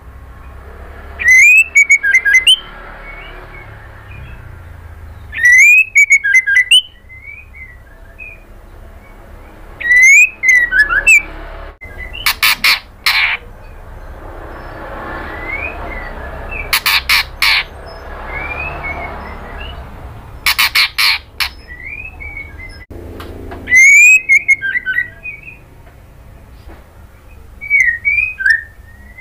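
White-rumped shama calling in loud bursts every few seconds: quick sweeping whistled notes, several bursts carrying rapid runs of harsh clicking rattles.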